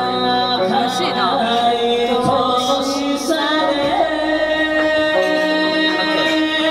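Music with a singing voice, held notes over a steady accompaniment.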